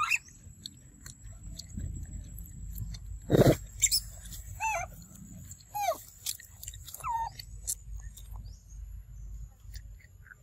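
Macaque giving short, arched squeaking calls, with one loud harsh call about three and a half seconds in, over a steady high insect drone.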